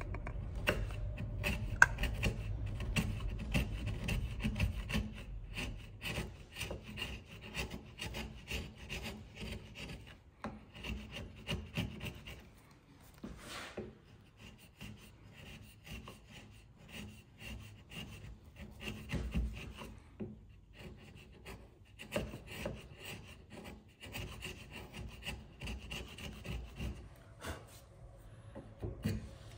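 Bevel-edged chisel paring thin shavings off a softwood halving joint by hand, in many short scraping strokes. These are fine trimming cuts to bring the joint flush, louder and more continuous in the first few seconds and lighter after.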